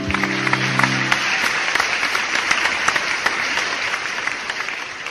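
Audience applauding at the end of a song, with dense clapping that thins and fades toward the end. The song's last held note dies away about a second in.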